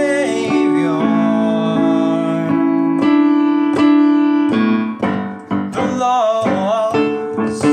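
Piano chords with a man singing a melody over them. The voice drops out for a few seconds in the middle while the piano holds chords, and comes back near the end.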